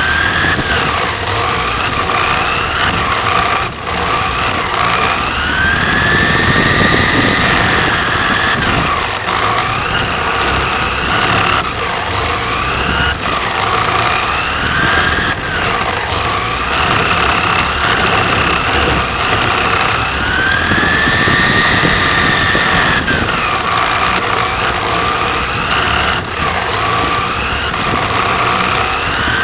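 Onboard sound of a 1/10-scale electric RC touring car (Team Associated TC4) racing round a track. The motor and gear whine climbs as the car accelerates and drops as it slows for corners, with a long high sweep twice along the straight. A steady rough noise from tyres and chassis runs underneath.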